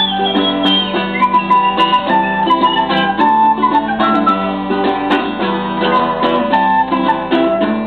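Acoustic guitar and flute playing a tune together, the guitar plucking under a flute melody.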